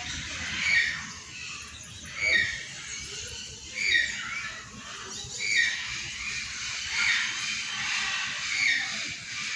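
An animal's short, high-pitched squeaky calls, six of them, evenly spaced about a second and a half apart.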